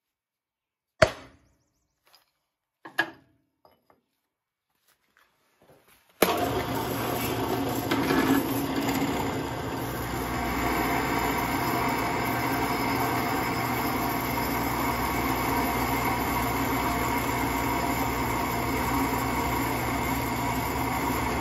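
Two sharp hammer blows on a steel center punch, marking a steel plate. A drill press then starts about six seconds in and runs steadily as its bit cuts into the steel plate.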